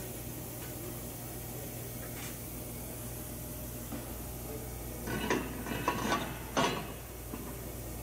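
Steady low machinery hum. About five seconds in comes a short run of metallic clinks and clatters, like stainless-steel parts knocking together, over roughly two seconds.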